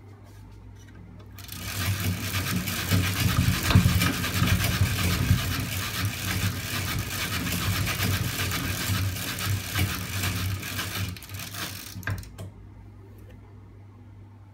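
Homemade magnet-engine rig, a stack of disc magnets on a shaft with a chain and sprocket, running with a fast mechanical clatter. The clatter starts about a second and a half in and stops near the twelve-second mark, over a steady low hum.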